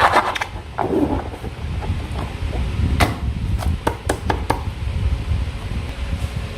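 Close-up handling sounds while making slime: a quick run of rubbing strokes that stops just after the start, then scattered sharp clicks and light taps over a steady low hum.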